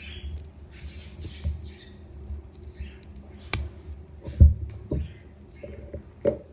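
Handling noise of a small Swiss Army pocket knife: scattered small clicks and rustles, with a sharp click about three and a half seconds in and a low thump about a second later.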